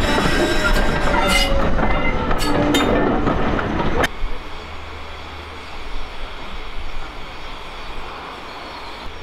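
Maroon BR Mark 1 passenger coaches rolling past close by, wheels squealing and clicking over the rail joints with a slowly falling squeal tone. It cuts off abruptly about four seconds in to a much quieter low rumble.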